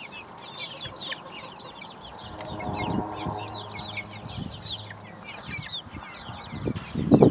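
A flock of young chickens peeping, many short high cheeps overlapping all the time, with a few loud low thumps near the end.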